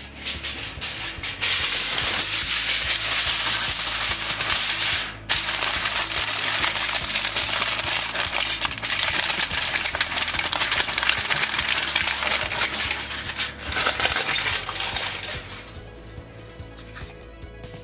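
Aluminium foil crinkling and crackling as hands fold and crimp it into a sealed packet for steaming, with a short break about five seconds in; it stops shortly before the end.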